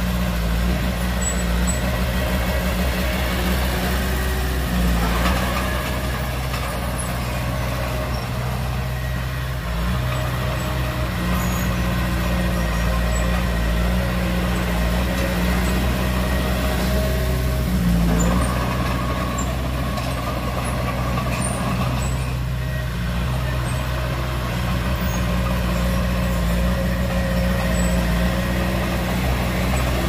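Heavy diesel engine of earthmoving machinery running steadily, its pitch shifting a little now and then.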